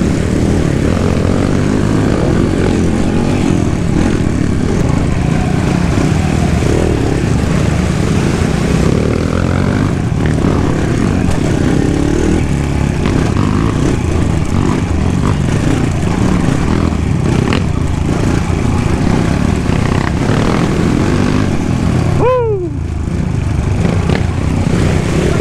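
Kawasaki KLX140G dirt bike's single-cylinder four-stroke engine running on the trail. About 22 seconds in, the engine note drops sharply and then climbs again.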